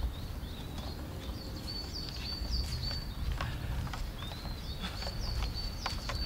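Footsteps of a monk in straw sandals walking up a forest trail: a few soft, sharp steps over a steady low outdoor rumble, with a high, thin chirping note repeating in the background.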